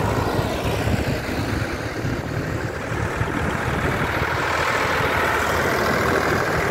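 Vintage farm tractors' engines driving past one after the other: a green tractor's engine going by close, then a blue Ford tractor's engine approaching and passing, fuller near the end.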